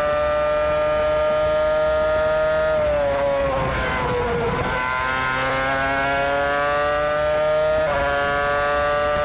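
Spyker F8-VII's Ferrari V8 Formula One engine heard from the onboard camera, held at high revs, then dropping in pitch about three seconds in and running rough and uneven for a second or two as the car slows for a corner. It then climbs steadily again under acceleration, with a quick gear change near the end.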